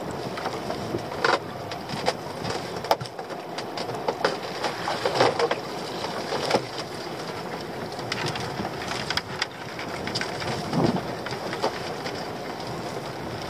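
Wind on the microphone and sea noise around a small open boat, with scattered knocks, clicks and splashes as a lobster pot is hauled up over the side, dripping, and handled against the gunwale.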